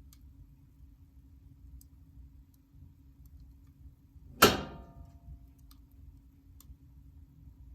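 Firewood burning in a fireplace, with faint scattered crackles and one loud, sharp pop about halfway through that rings briefly.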